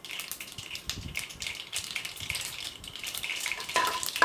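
Hot oil sizzling and crackling in an aluminium pressure pan as mustard seeds and chana dal fry for a tempering, the dal browning towards golden.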